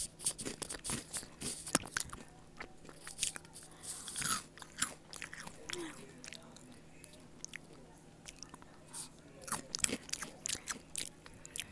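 Close-miked chewing of a crunchy snack: a run of sharp, crisp crunches and mouth sounds picked up by an earbud microphone held right at the mouth. The crunches come in clusters, thinning out in the middle and picking up again near the end.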